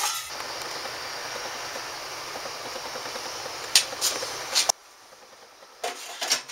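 A steady hiss and low hum, with a few sharp metal clicks and clanks as stainless-steel parts of an Ooni Karu 12 pizza oven, such as the firebox, are fitted into place. The hum cuts off suddenly about two-thirds of the way through, and more metal clicks follow near the end.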